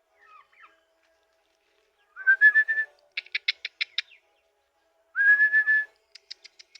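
A whistle that rises briefly and then holds for about half a second, followed by a quick run of about six sharp, high pips. The whole phrase sounds twice, about three seconds apart.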